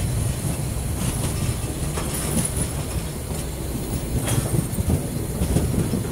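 Narrow-gauge steam locomotive rolling slowly: a steady low rumble with a thin high hiss and a few sharp clicks of the wheels.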